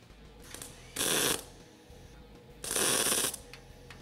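Two short MIG spot welds on sheet steel, each arc burning about half a second, the first about a second in and the second near three seconds. The welder's wire speed is set too high.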